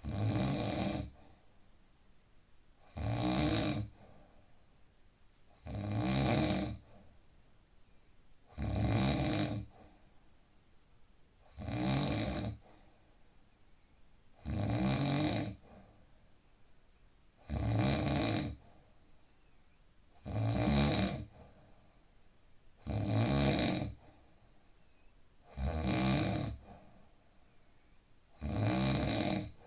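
A man snoring steadily in sleep: a rasping snore about a second long on each breath, about every three seconds, with quiet between.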